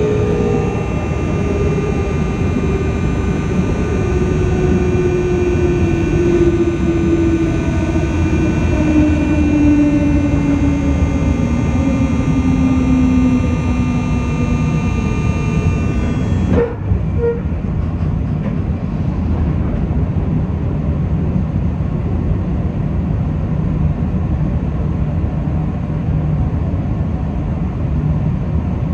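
JNR 201 series armature chopper control heard from the car floor right above the equipment: a loud electric whine of several steady high tones, with a lower tone sliding down in pitch as the train slows. Just past halfway the chopper whine cuts off abruptly with a click, leaving only the rumble of the train running on the rails.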